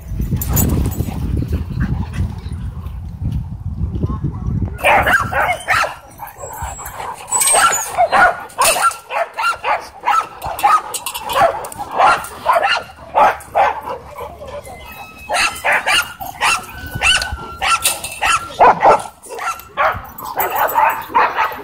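Dogs barking over and over, starting about five seconds in, after a few seconds of low rumble.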